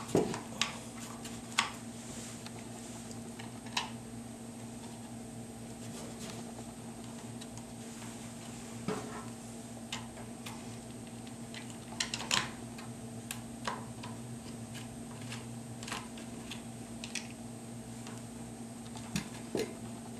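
Scattered light clicks and knocks of rifle and stock parts and screws being handled and fitted by hand, a few at a time with pauses between, over a steady background hum.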